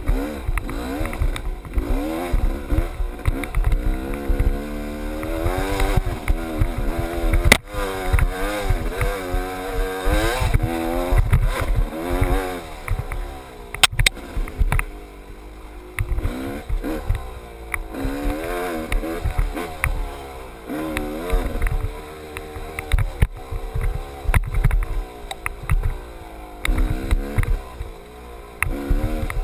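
GasGas dirt bike engine revving up and falling back again and again as the rider works the throttle through a rough trail. A few sharp knocks are heard along the way.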